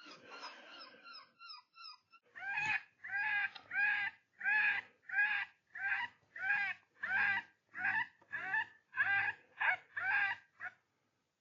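Predator call playing an animal distress sound: a run of identical short cries, each rising and falling, about one and a half a second, that stops abruptly near the end.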